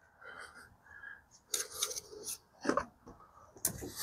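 Faint clicks and taps of the opened Greenworks 82V Optimus battery's plastic case being handled and set on a wooden workbench: a few short knocks about one and a half seconds in, then a couple more near the end.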